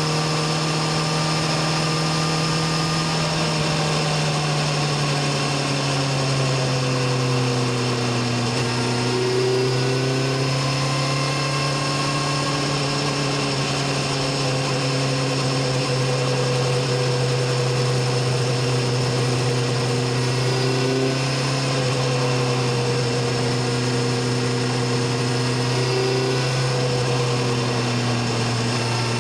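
BMW S1000RR inline-four engine and exhaust running steadily at cruising speed, its pitch drifting gently up and down with small throttle changes.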